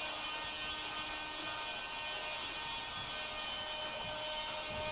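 Steady electrical hum and hiss with faint thin whining tones, unchanging throughout.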